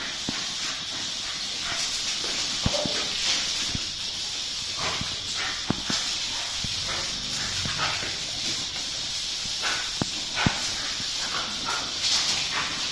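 Garden hose spraying with a steady hiss while dogs chase and bite at the stream. Short sharp snaps and splashes come at irregular moments throughout.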